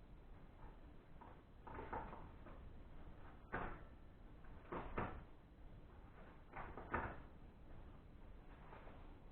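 Handling noises from working on a bicycle during assembly: a few short knocks and clunks of parts being moved and set down, the sharpest about three and a half, five and seven seconds in, with light rustling between.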